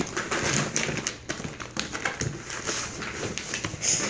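Handling noise: a laminated shopping bag and its cardboard box rustling and knocking as the glued-on bag is worked loose, with many small clicks and scrapes.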